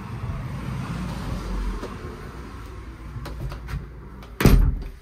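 A uPVC front door is handled and pulled shut, closing with a loud thud about four and a half seconds in, after a few light clicks of the handle. Before the thud there is a steady low rumble.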